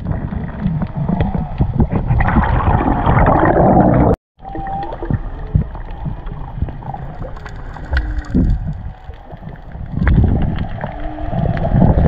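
Muffled underwater noise of water rushing and gurgling around the camera as the diver moves. The sound cuts out for a moment about four seconds in, then carries on.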